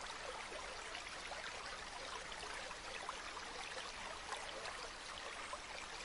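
A steady trickle of running water, like a small stream, with faint ticks and patters through it.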